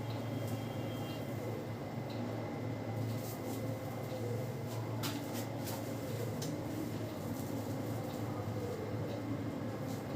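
Head massage by hand: rubbing over hair and scalp, with a few short sharp clicks about halfway through, over a steady low hum.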